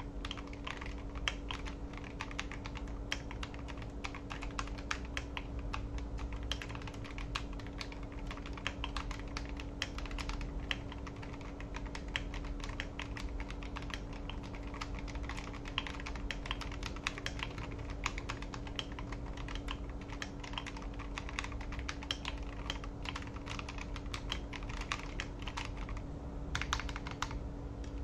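Steady, fast typing on a custom mechanical keyboard fitted with Akko Matcha Green switches and thick Akko Carbon Retro PBT double-shot ASA-profile keycaps, keystrokes clacking in quick succession as a typing sound test, with a brief pause about 26 seconds in.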